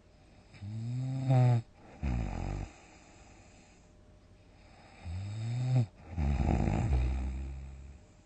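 A sleeping person snoring loudly, twice. Each snore is a buzzing sound that rises in pitch and breaks off, followed by a lower, rattling breath; the second rattle is longer and fades away.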